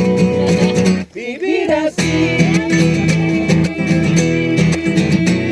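Music with acoustic guitar in a steady rhythm, dropping out briefly about a second in.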